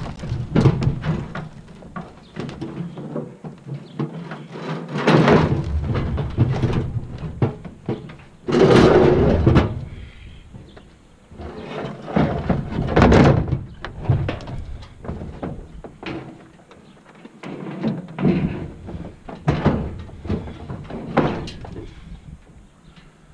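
A heavy steel barbecue grill being wrestled into the back of a vehicle: irregular thuds, knocks and metal scraping in several loud bouts.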